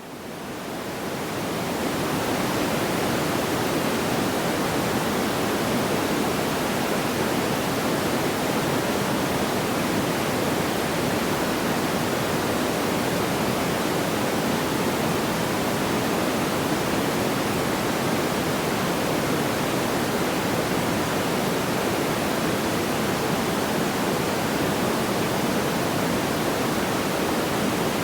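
Steady, even rushing noise like pink noise, with no crackles or pops. It fades in over the first couple of seconds after a brief drop-out.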